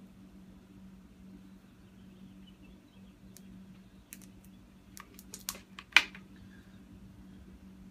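Scattered light clicks and plastic snaps as cooled, leftover HDPE is picked and peeled off the heating tools. The sharpest snap comes about six seconds in. A steady low hum sits underneath.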